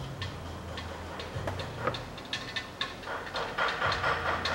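Scattered metallic clicks of a hand ratchet undoing the bolt that holds an automatic transmission's oil filter. From about three seconds in, a steady splashing as transmission fluid runs out into a drain basin.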